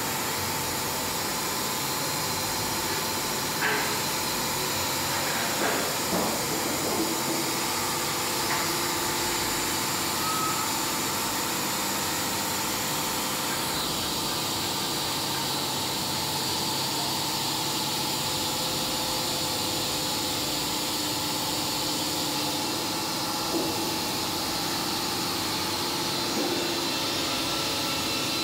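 Wood-Mizer WM3500 band sawmill running with a steady mechanical hum and hiss, with a few light clanks about four to seven seconds in and again near the end.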